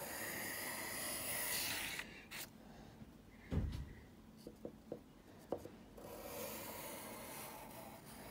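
Pencil scratching across notebook paper in drawing strokes, for about two seconds and again from about six seconds in. A dull knock comes about three and a half seconds in, with a few light ticks after it.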